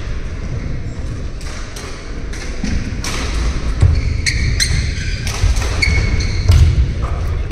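Badminton singles rally: rackets hitting the shuttlecock in a string of sharp hits, with shoes squeaking on the court floor and feet thudding during footwork.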